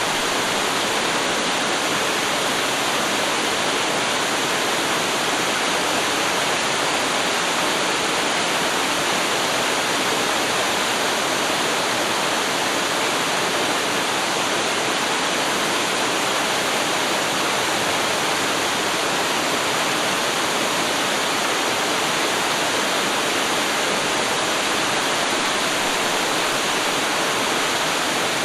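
Waterfall: water pouring and splashing in a steady, even rush that never changes.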